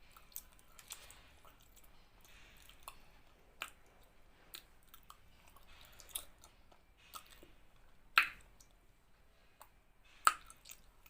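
Chewing and wet, squishy mouth sounds of someone eating a meal of rice and dal, with scattered small clicks and two sharper clicks about eight and ten seconds in.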